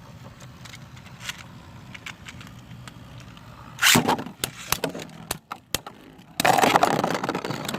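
3D-printed Beyblade tops spinning in a stadium with a faint steady whir and light clicks. There is a sharp clack of a hard hit about four seconds in, then dense rattling clatter over the last second and a half.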